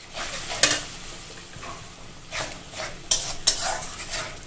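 A spatula stirs and scrapes a spice masala frying in oil in a metal kadai, with a steady sizzle. The strokes come at uneven intervals. This is the bhuna stage, where the onion-ginger-garlic paste and ground spices are fried with a splash of water.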